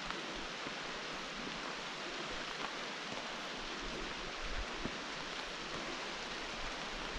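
Steady, even outdoor hiss with a few faint, scattered ticks.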